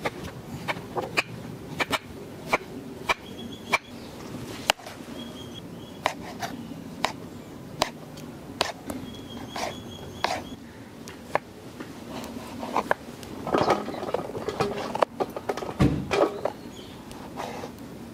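Irregular sharp knocks and taps, busier for a few seconds near the end, with one heavier, deeper thump and a few short high chirps between them.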